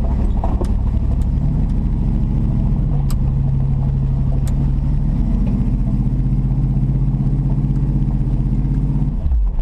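GMC 4x4 wrecker's engine working hard as the truck pulls up a hill trail, its note stepping up slightly twice. It shifts to a lower hum near the end, with a few sharp ticks along the way.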